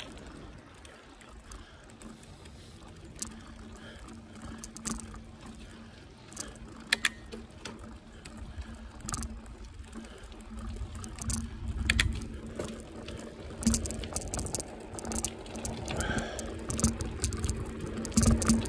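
Bicycle rolling along a tarmac street: tyre and road rumble with scattered clicks and rattles from the bike, the rumble growing louder in the second half.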